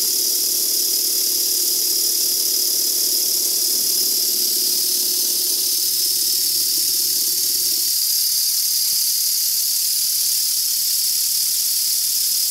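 A pair of coupled Blackgates twin model steam engines running on compressed air, freshly over-oiled while still running in: a steady hiss of exhaust air with a hum whose pitch drops about eight seconds in.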